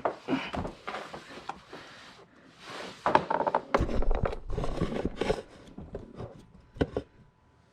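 Footsteps and rummaging for a rag: an irregular run of knocks, scrapes and rustles, busiest in the middle, with one sharp click near the end before it quiets.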